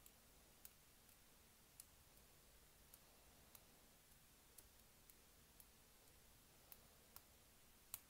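About a dozen faint, irregular clicks from a hook pick lifting the pin tumblers in the brass cylinder of an old-style Federal Super padlock held under tension, with near silence between them.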